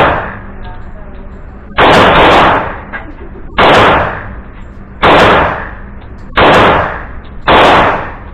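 Five .45 ACP pistol shots from a Girsan MC1911S 1911-style handgun, fired one at a time about one and a half seconds apart, each very loud with a short echoing decay.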